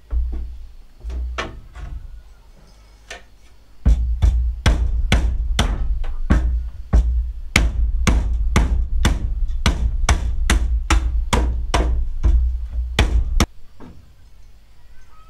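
A hand tool striking over and over in a steady rhythm, about two sharp blows a second for roughly ten seconds, with a few scattered knocks before the run begins.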